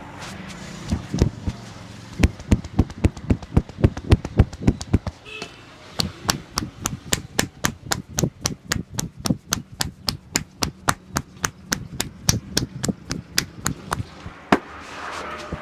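Rapid rhythmic percussive strokes of a head massage, a barber's hands striking the head at about four to five blows a second. Heavier, deeper blows come first, then a brief pause about five seconds in, then a long run of sharper, even strikes.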